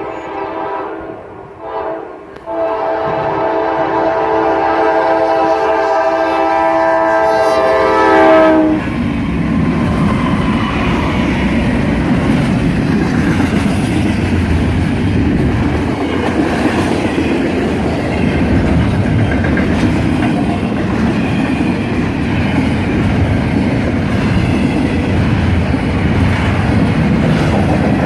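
Norfolk Southern freight locomotive sounding its multi-note horn in several blasts, the last long one dipping slightly in pitch and cutting off about nine seconds in. The train then rolls past with a steady rumble and the clatter of wheels over rail joints.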